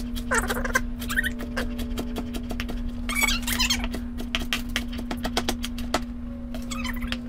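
Chef's knife chopping spinach leaves on a plastic cutting board: a quick run of sharp knife strikes. A few short, wavering high-pitched animal calls sound over the chopping.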